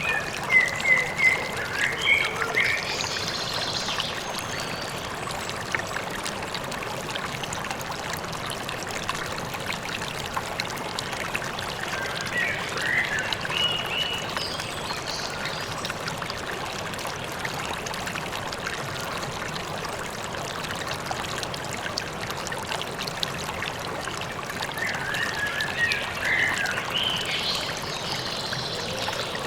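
River water running with a steady rush, and a songbird chirping in short bursts of rapid notes three times: at the start, around the middle and near the end.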